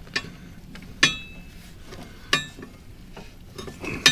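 Steel wrenches clinking against a mower blade and its spindle nut: four sharp metallic clinks about a second apart, two of them with a short ring.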